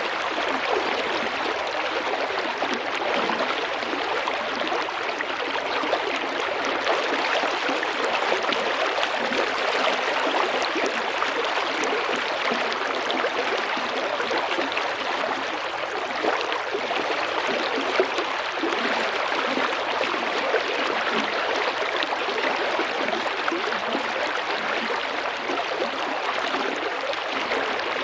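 Small river or creek flowing steadily, a continuous babbling and gurgling of water over stones.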